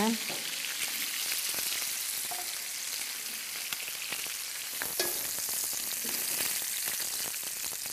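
Pork ribs sizzling steadily in hot lard in a frying pan as they are browned, with a few light clicks of a fork against the pan as the pieces are lifted out, the clearest about five seconds in.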